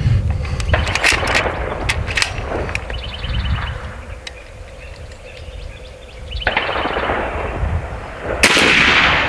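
Clicks and knocks of the AEA Challenger Pro's side lever being worked, then a single loud shot from the .30 calibre regulated PCP air rifle near the end.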